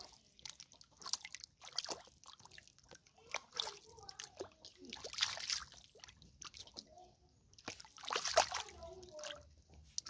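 Bare feet stepping and sloshing through a shallow muddy puddle, splashing water in irregular bursts, the loudest about eight seconds in.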